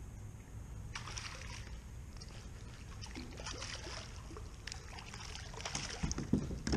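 Water splashing and dripping at the side of a kayak, with scattered clicks and rustles of handling, and a few louder thumps near the end.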